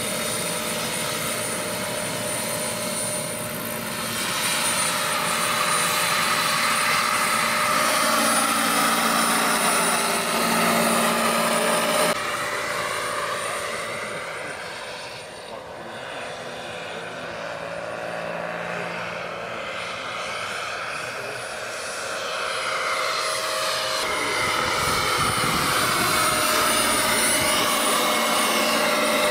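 Scale model tandem-rotor helicopter, a CH-46 Sea Knight replica, running its motors with a steady whine and the whoosh of its rotor blades. It grows louder a few seconds in, fades around the middle as it flies off, and builds again near the end as it passes close.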